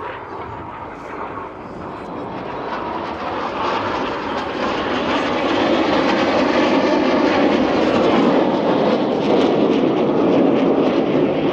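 Red Arrows BAE Hawk jets passing over in formation: a jet roar that swells steadily over the first half and stays loud to the end.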